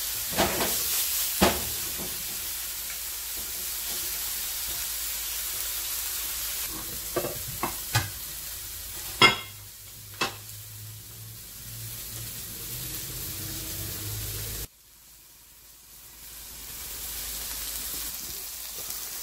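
Two striped bass fillets frying in oil in a nonstick pan, flesh side down after being flipped: a steady sizzle with several sharp metal clicks in the first half from the tongs against the pan. About fifteen seconds in the sizzle drops away abruptly, then slowly builds back up.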